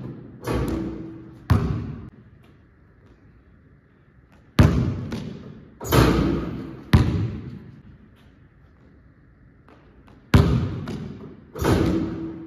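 Basketball bouncing hard on a gym floor, single loud bounces in small groups with quiet gaps between, each ringing on in the echo of a large hall.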